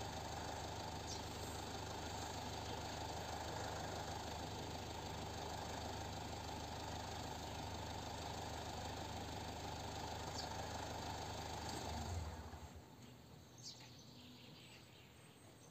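An engine idling steadily with a low hum, then shut off about twelve seconds in. Faint bird chirps follow.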